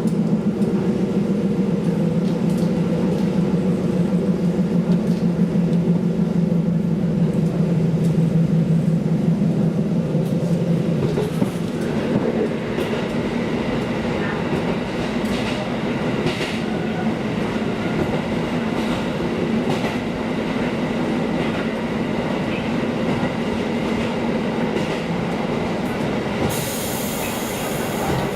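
KiHa diesel railcar running on the line: the engine's low drone is strong for the first ten seconds or so, then fades, leaving the wheels clicking over the rails. A high hiss starts near the end.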